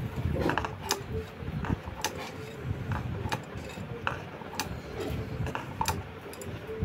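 Stone on stone of a shil-nora spice-grinding slab and its grinding stone: irregular taps and scrapes, about one or two a second, as the ground spice paste is scraped up off the slab.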